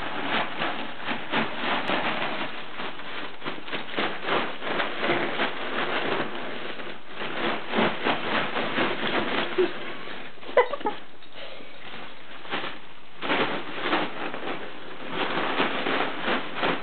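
Foil (mylar) helium balloon crinkling and crackling as a puppy bites, chews and tugs at it, in quick irregular crackles with a short lull past the middle. A brief squeak sounds just before the lull.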